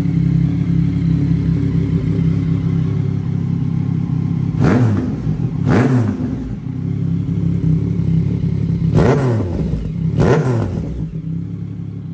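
2019 Yamaha XSR900's three-cylinder engine idling through an aftermarket exhaust and blipped four times: two quick revs about five seconds in, and two more about nine to ten seconds in.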